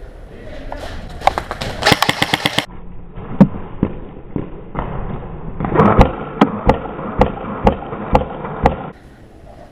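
Airsoft electric rifle firing: a short full-auto burst about two seconds in, then a string of single shots, about three a second, from the middle to near the end.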